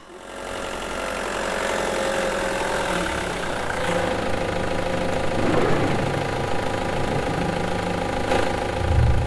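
Car engine running steadily, with a low thud near the end.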